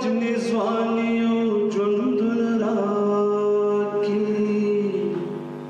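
A man singing a Pashto verse into a microphone, holding long drawn-out notes that step and slide from one pitch to the next, a little softer near the end.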